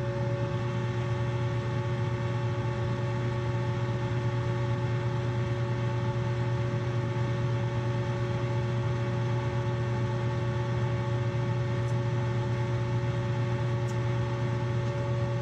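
Rooftop HVAC unit running steadily while its heat stage is being tested: an even low machine hum with a few constant higher tones over it.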